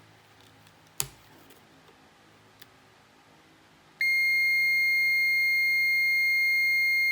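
Digital multimeter's continuity tester: a sharp click about a second in, then a steady high beep starting about four seconds in and held, the meter's signal that there is a continuous path for electricity between the probes.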